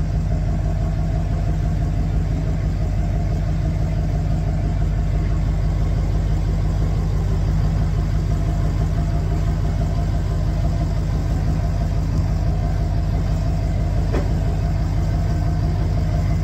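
Pickup truck engine running at a steady low idle while the truck reverses slowly under the load of a boat trailer, heard from inside the cab.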